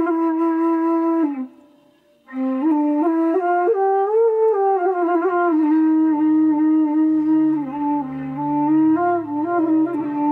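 Background film music: a slow, plaintive wind-instrument melody that breaks off briefly about a second and a half in and then resumes, with deep sustained notes joining beneath it about halfway through.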